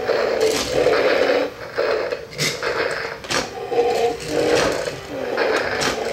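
Battery-operated toy dinosaurs' gear motors whirring in short spurts that start and stop, with sharp plastic clicks among them.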